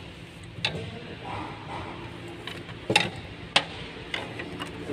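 Plastic and metal parts of a car's in-tank fuel pump and filter assembly clicking and knocking as they are handled on a workbench: several sharp clicks, the loudest about three seconds in, over a steady low hum.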